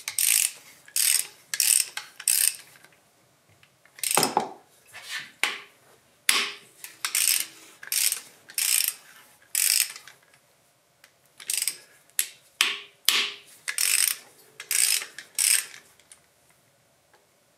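Socket ratchet clicking as it turns out cylinder head bolts on a small diesel engine, in short runs of quick clicks broken by pauses while the wrench is repositioned.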